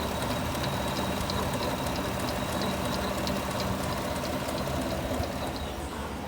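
2020 Chevrolet Suburban 5.3-litre V8 idling, with a regular light tick a few times a second over the running hum: the creaking the mechanic puts down to a failing water pump, whose pulley has too much play. The ticking and a steady whine stop near the end, leaving a lower hum.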